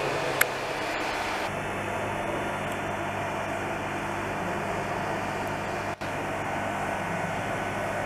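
Steady machine hum with an even hiss over it, with a short click near the start and a brief drop in sound about six seconds in.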